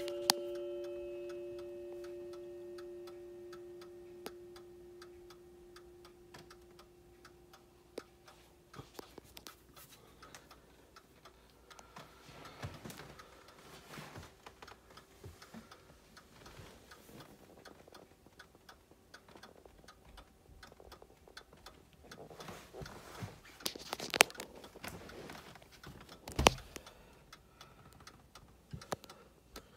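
Ansonia Marquis crystal regulator clock ticking steadily, while the ring of a stroke on its coiled wire gong fades away over the first several seconds. A few louder knocks come in later on.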